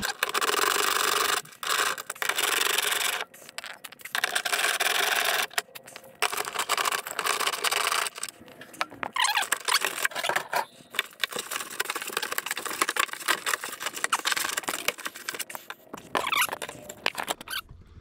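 A 10 mm socket tool backing out the bolts or screws that hold a panel over the turn-signal housing: repeated bursts of rasping, clicking turning, each a second or so long, with short pauses between.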